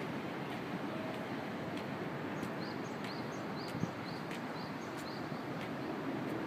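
Footsteps on paving over steady city background noise, with a run of about eight short, high rising chirps in the middle.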